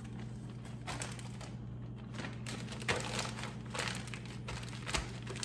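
Plastic freezer bag crinkling in several short rustles as it is handled and pressed to get the air out.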